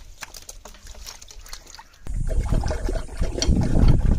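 Hands groping in a shallow muddy pool among stones, with small splashes and trickling water. About halfway through, louder, closer sloshing and handling noise takes over.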